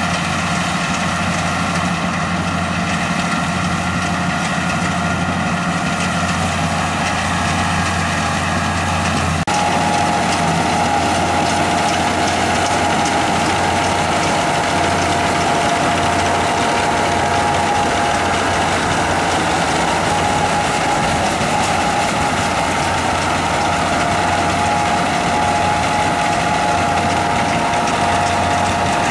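Braud 2065 combine harvester running steadily while harvesting barley, its engine and threshing machinery giving a continuous low hum. About ten seconds in the sound shifts suddenly and a steady high whine joins the hum.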